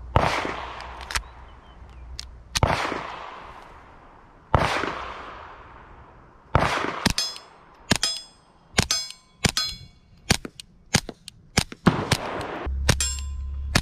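Ruger MKIV 22/45 Lite .22 LR pistol with a Dead Air Mask suppressor, firing subsonic ammunition. Four shots come about two seconds apart, each with a long fading echo. Then a quicker string of about a dozen shots, with a short metallic ring after many of them.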